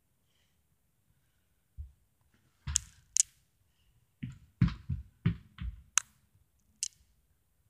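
Scattered soft thumps and sharp clicks, with a quick run of about five low thumps about halfway through.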